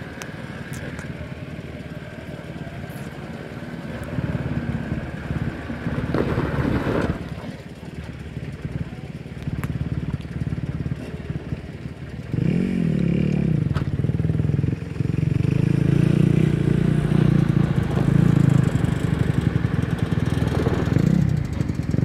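Mitsubishi Pajero's engine labouring as the 4x4 crawls up a steep rocky slope. The revs climb about halfway through and it runs louder from then on.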